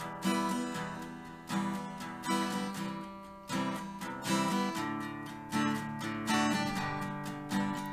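Background music: acoustic guitar strumming chords in an even, steady rhythm.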